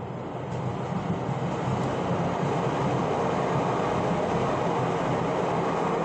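A train passing by: a steady noise with a low hum that swells over the first two seconds, then holds loud.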